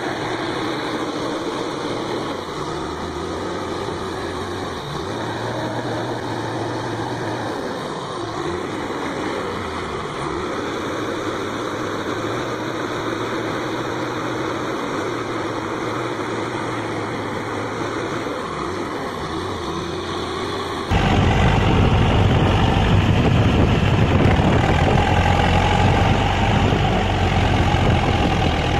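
Heavy diesel engine idling steadily. About two-thirds of the way through it cuts suddenly to a louder, rougher engine sound with a deep rumble, from a farm tractor stuck in mud.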